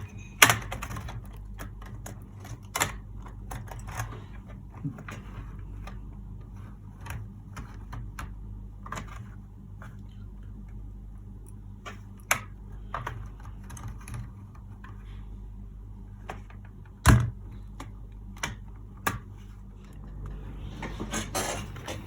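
Plastic bottom cover of an HP 15q laptop being pried and pushed off: irregular plastic clicks and snaps as its locking clips release, with one louder snap late on.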